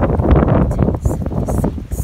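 Wind buffeting the microphone: a loud, gusty rumble.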